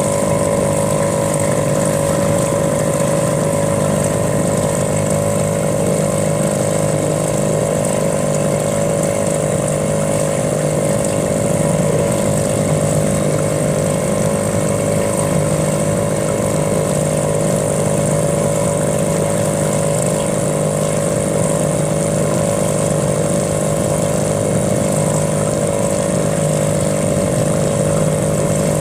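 Small outboard motor running at a steady speed, an even drone with no change in pitch or level.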